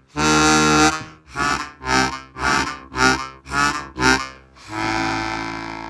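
Harmonica playing chords: a long chord, then a run of short rhythmic notes about two a second, ending on a held chord that fades out.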